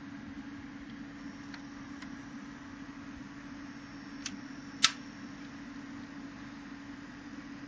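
Pioneer PL-X300 automatic mini turntable running with its case open: a steady low motor hum, with a faint click a little past four seconds and a sharp, louder click just before five seconds.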